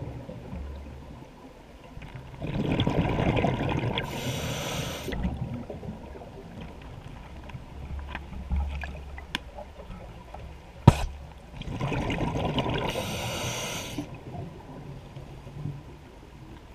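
A scuba diver breathing underwater through a regulator. Two breaths come a few seconds in and again near the end, each a rush of exhaled bubbles followed by the regulator's hiss. A single sharp click comes about two-thirds of the way through.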